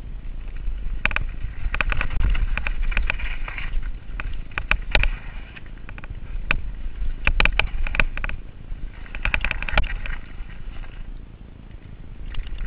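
Giant Reign full-suspension mountain bike clattering down a rough dirt singletrack, with many sharp rattles and knocks as it hits bumps, over a steady low rumble of tyres and wind.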